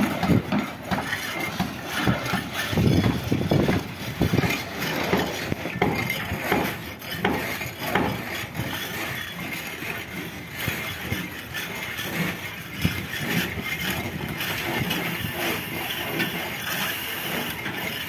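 Long-handled scrapers scraping and knocking barnacles and shellfish off a boat's hull in irregular strokes, over a steady background hum.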